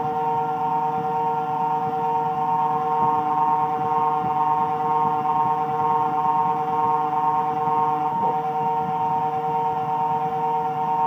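Taig CNC milling machine running as a small end mill cuts a slot in brass plate: a steady whine of several held tones, which wobbles briefly about eight seconds in.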